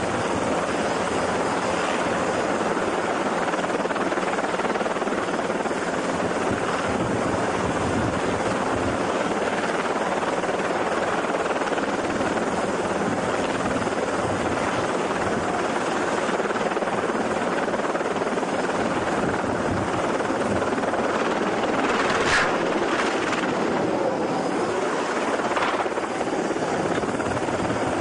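Small helicopter running on a ship's helideck: a steady, loud noise of engine and rotor, with a few short, sharper sounds around two-thirds of the way through.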